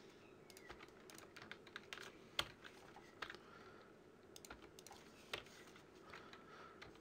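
Faint computer keyboard keystrokes, single keys tapped at irregular intervals, with a sharper click about two and a half seconds in.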